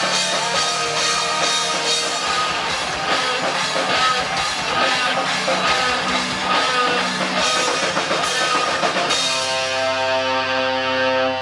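Rock band playing an instrumental passage with electric guitar and drum kit; about nine seconds in the drums stop and a held chord rings on.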